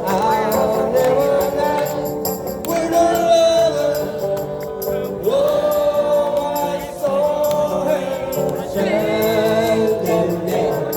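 Live street band playing: guitar accompaniment under a sustained melody line that holds long notes and bends into some of them.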